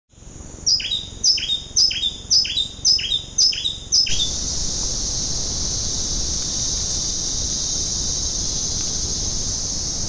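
A bird calling a run of about seven sharp notes, each falling steeply in pitch, roughly two a second. The calls stop about four seconds in, leaving a steady high-pitched hiss.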